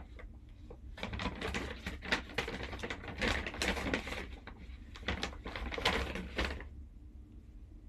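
Rustling and small clicks and knocks as things are rummaged through and handled by hand, an irregular run that stops about a second before the end.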